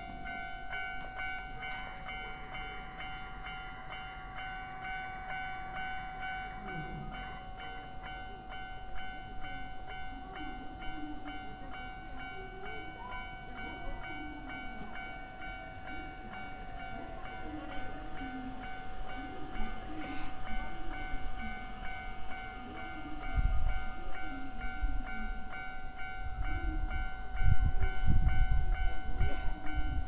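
Japanese railway level-crossing warning bell ringing steadily while the signals flash and the barrier is down. Heavy low rumbling comes in bursts from about two-thirds of the way through and grows louder toward the end.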